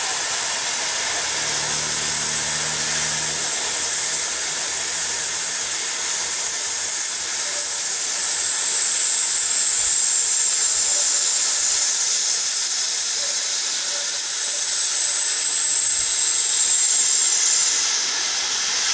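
Steam tank locomotive standing with steam hissing steadily from it, a loud even hiss with a thin high whistling tone on top; the tone stops and the hiss drops back a little near the end.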